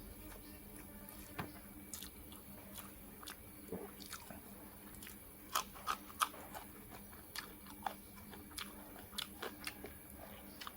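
Close-up eating sounds: irregular wet mouth smacks and crunches of chewing, with a few louder clicks about halfway through, over a faint steady hum.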